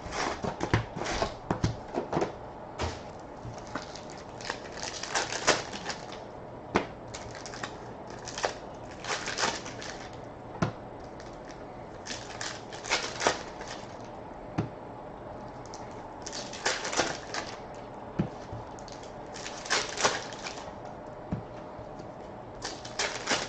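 Trading card box and foil packs being handled and torn open: irregular clicks, taps and crinkly rustles, some in short clusters, over a faint steady hum.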